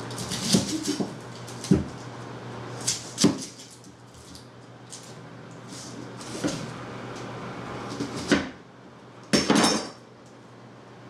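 Chef's knife slicing an onion on a plastic cutting board: short separate knocks of the blade meeting the board, spaced about a second apart. A louder clatter near the end as the knife is set down.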